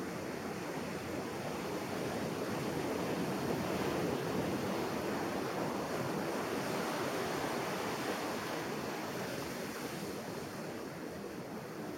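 Ocean surf breaking and washing up a sandy beach: a steady rush that swells a few seconds in and then eases off, with wind on the microphone.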